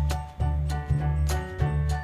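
Background music with a steady beat: a repeating bass line, regular percussion strikes and held melodic notes.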